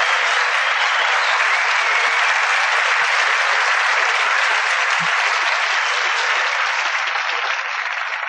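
An audience applauding steadily in a large room, beginning to die down near the end.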